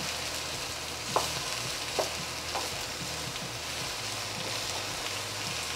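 Eggplant, bell pepper and chili sizzling in oil in a nonstick wok while a wooden spatula stirs and turns them, with a few short scrapes and knocks of the spatula against the pan.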